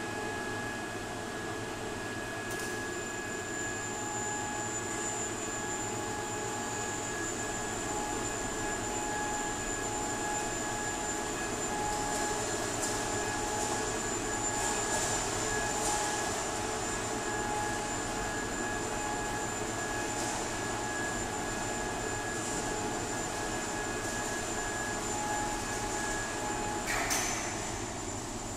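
Steady drone of workshop machinery in a large metal-fabrication hall, with high steady whines over it and a few faint clanks. Near the end a louder clank comes and the whines cut out.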